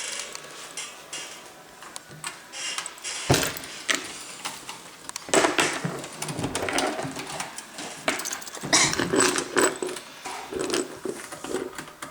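Screwdriver turning screws out of a Toshiba C650 laptop's plastic bottom case: irregular ratchet-like clicking and small rattles in clusters, with a sharp knock about three seconds in.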